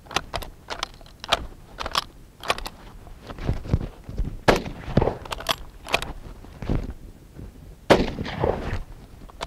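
M1886 Lebel bolt-action rifle firing 8mm Lebel: a series of short metallic clicks as the action is worked, then several shots in fairly quick succession with bolt clicks between them, fired from the tube magazine with the cutoff opened.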